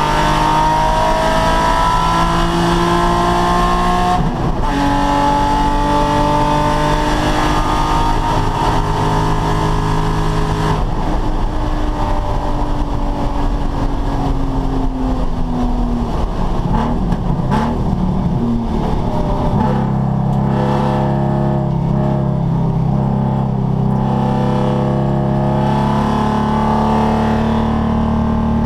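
Nissan 350Z's 3.5-litre V6 at full throttle, rising in pitch through a gear, an upshift about four seconds in, then pulling hard again before backing off and winding down for several seconds with some ragged, uneven sound along the way. It then settles into a steady note to the end.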